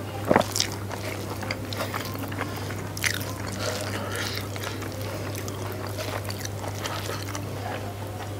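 Bare fingers mixing rice with sambal on a banana leaf: soft, wet squishing and rustling with scattered small clicks. There is one sharp click about a third of a second in, and a steady low hum underneath.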